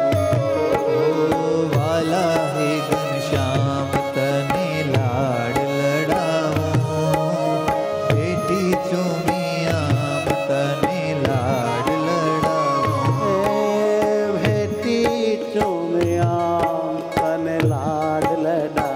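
Instrumental interlude of a devotional kirtan: tabla playing a steady rhythm under a winding melodic instrument line.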